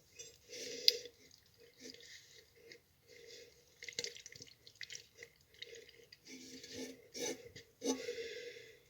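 Glass jar full of lemons and water being handled and closed with its lid: light scraping and liquid sloshing, with a few sharp clicks, the loudest about a second in and near the end.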